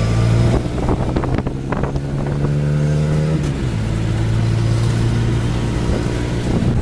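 Auto-rickshaw engine running as the three-wheeler drives along, heard from inside its open passenger cabin. The engine note climbs a little and then drops about three and a half seconds in.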